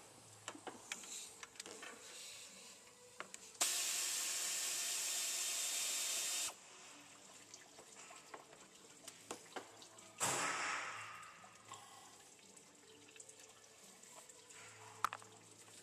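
Pneumatic air ratchet running for about three seconds, a steady hiss that starts and cuts off sharply, backing out a water pump bolt. Light clicks of tools being handled, and a second, shorter rush of noise about ten seconds in that fades over a couple of seconds.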